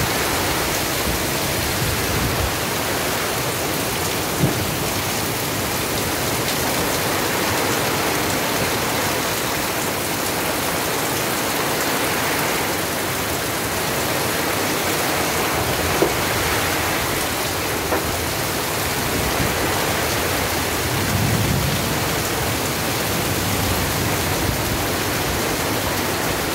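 Heavy rain falling steadily through trees and onto a tarpaulin awning and corrugated metal roof, with runoff streaming off the awning's edge.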